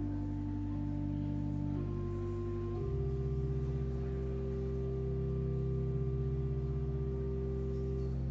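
Church organ playing slow, held chords over a deep pedal bass, the chord changing about two and three seconds in.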